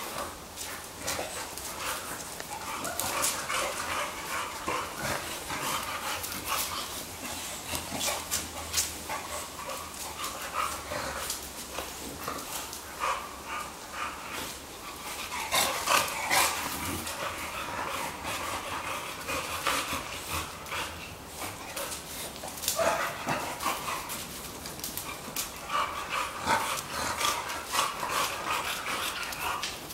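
Two dogs play-fighting, vocalizing on and off throughout, with the loudest outbursts about 16 and 23 seconds in.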